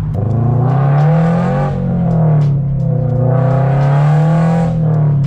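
2023 Toyota GR86's 2.4-litre flat-four, fitted with unequal-length catless headers and a straight-piped exhaust, heard from inside the cabin under acceleration. The pitch climbs, drops at a gear change about two seconds in, then climbs again and drops near the end.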